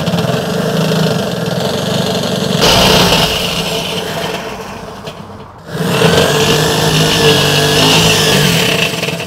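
Electric drill driving a step drill bit through the thin sheet metal of a Weber kettle rotisserie ring, the bit cutting and grinding as it widens the hole toward 1 1/4 inches. The drill runs, stops briefly about five and a half seconds in, then runs again.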